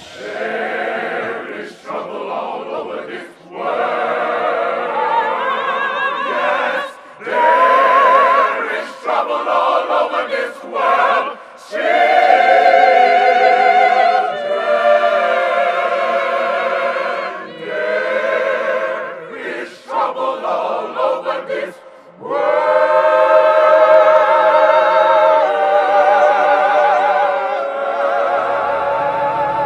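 Gospel choir singing in phrases separated by short breaks, holding long notes with wide vibrato; a low part comes in near the end.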